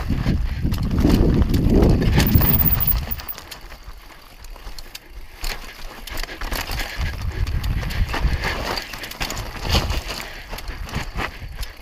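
Mountain bike rolling down a rocky trail of loose stones: tyres crunching over rock and bike parts rattling. A heavy low rumble for the first three seconds, then quieter, with scattered clattering knocks.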